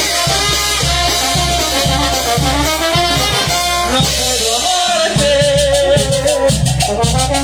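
Peruvian brass band playing an instrumental passage: a brass melody over a steady drum-kit beat. About five seconds in, a fast, even high percussion rattle joins.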